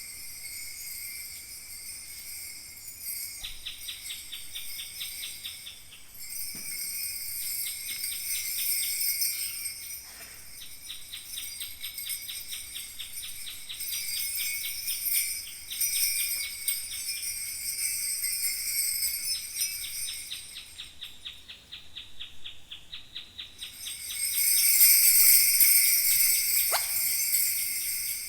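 Kaskawillas, Mapuche bronze bells, shaken continuously in a rapid, even jingling rhythm that swells louder near the end, played to imitate falling water.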